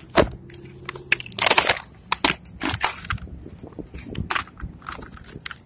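Cardboard and clear plastic blister packaging being torn apart and crumpled by hand: irregular crackling and crunching, with a few louder crunches.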